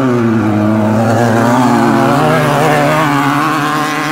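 Class 9 off-road race buggy's engine revving hard on a dirt track, pitch dropping at first and then climbing and wavering as the throttle is worked, loud as it passes close.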